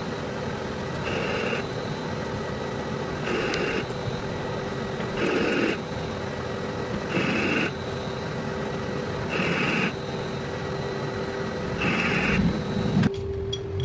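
Metal lathe running with a steady machine hum while a threading insert cuts an external thread. A short burst of cutting noise comes about every two seconds, one for each threading pass. The cutting bursts stop about a second before the end.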